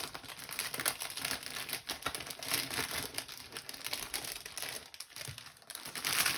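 Crinkling plastic packaging from a diamond painting kit being handled, with a brief lull about five seconds in.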